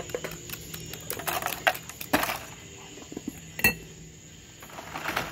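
Ice pick stabbing and chipping a block of ice, with pieces of ice clinking against and into glass tumblers: a few sharp knocks and clinks, the loudest about three and a half seconds in with a short ring.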